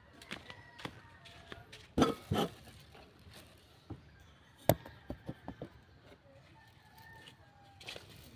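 A phone being handled and set down, its microphone picking up knocks and rubbing: a sharp thud about two seconds in, another near the middle, then a quick run of small clicks. Faint calls, likely from chickens or birds, sound thinly in the background.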